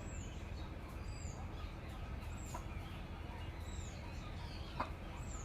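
Faint, very high, short chirps of a bird, each falling slightly in pitch and repeating about once a second.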